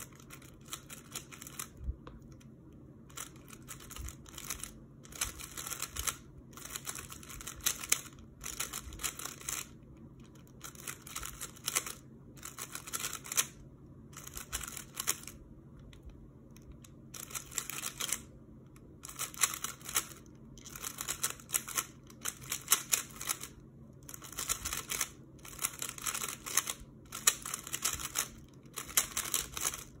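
Plastic 3x3 Rubik's cube turned in quick bursts of rattling clicks, one to two seconds at a time with short pauses between: F2L pairs being solved.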